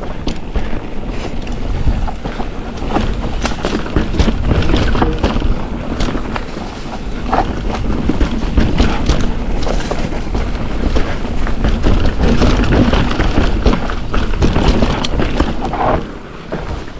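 Wind rushing over the camera microphone and the clatter of a 2023 Ibis Ripmo V2S mountain bike descending a rough dirt downhill trail, with many knocks and rattles as it goes over bumps. The noise eases about a second before the end.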